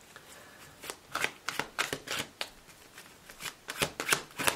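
Deck of tarot cards being shuffled by hand: a run of quick, irregular card snaps and slaps starting about a second in.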